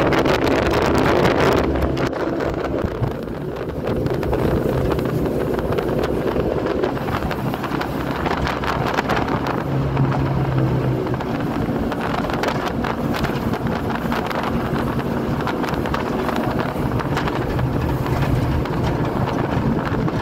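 Jet boat running at speed, its engine a steady drone under the rush of water along the hull and wind buffeting the microphone.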